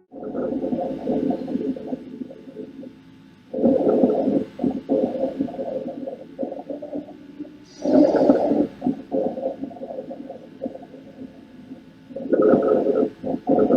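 Breath sounds heard through a stethoscope on a patient's chest: four breaths about four seconds apart. Each starts loud and fades, with a low humming tone and dense clicking running through it.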